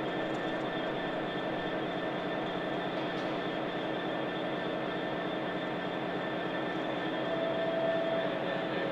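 Class 66 diesel-electric locomotive's two-stroke V12 engine idling steadily at a standstill, a constant throb with a steady whine over it. A brief higher tone joins about seven seconds in.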